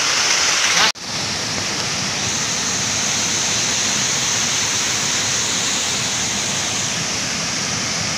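River water rushing over boulders: a steady wash of noise, broken by a brief dropout about a second in.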